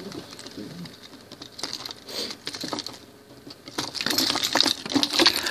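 Irregular light clicks and rustling, like handling noise from a recording phone covered or carried against fabric, quieter around the middle and growing louder and busier near the end.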